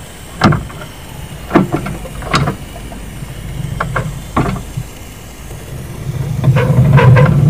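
Miniature steam locomotive getting under way: a few slow, uneven exhaust beats, then about six seconds in a rapid, steady chuffing with a low rumble that grows louder as it picks up speed.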